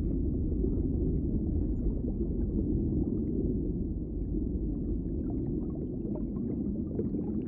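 Underwater ambience: a steady low rumbling wash of water, with faint scattered ticks and pops like small bubbles.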